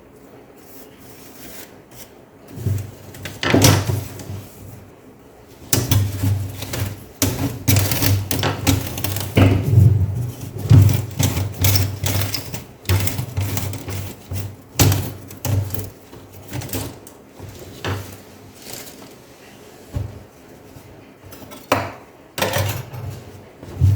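Wiping and rubbing down the inside of a laptop where the keyboard was removed: irregular scrubbing strokes mixed with light knocks of the plastic chassis being handled, busiest from about six seconds in.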